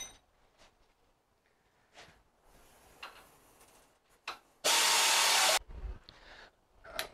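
An air-powered hand tool on a hose runs in one burst of about a second, snugging up the U-bolt nuts on the leaf-spring axle, and stops sharply. Around it come a few light metal clicks and taps of hand tools.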